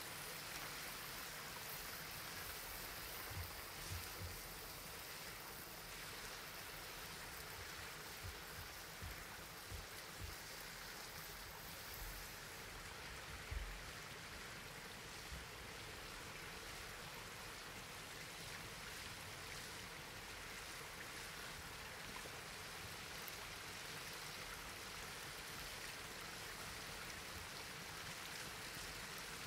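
A faint, steady rush of water, with a few soft low thumps in the first half.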